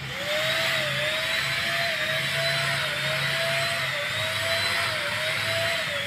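Multipro ESP-800JY 350-watt electric spray gun switching on and running steadily while spraying anti-leak coating: a motor whine that wavers slightly in pitch, over an airy hiss of atomised coating.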